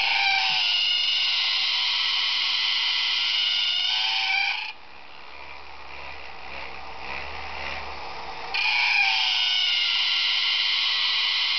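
1950s Marx battery-operated Yeti toy working: its sound mechanism gives a loud, pitched cry held for about four and a half seconds, falls back to the quieter hum of its electric motor and gears, and starts crying again near the end.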